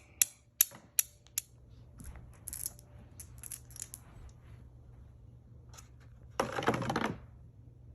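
Marbles clicking and rattling down a homemade cardboard and popsicle-stick marble run: a quick string of sharp clicks, then softer ticks, and a louder rushing rattle lasting about half a second near the end.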